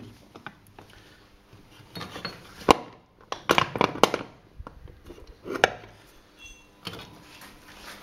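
Metallic clinks and knocks from the kick-start gears in an open Peugeot scooter crankcase cover as they are moved by hand: about half a dozen sharp, irregular strikes.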